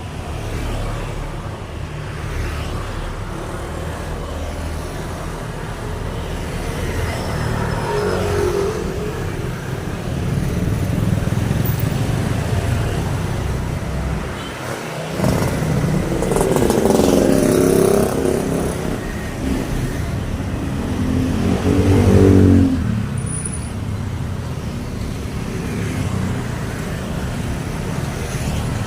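Road traffic: a steady stream of motor vehicles passing, with engines swelling and fading as each goes by. Two louder close passes come about 17 and 22 seconds in.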